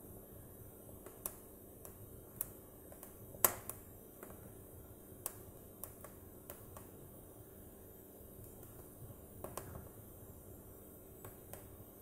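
Split logs burning in a fireplace, crackling with irregular sharp pops over a faint background hiss; the loudest pop comes about three and a half seconds in.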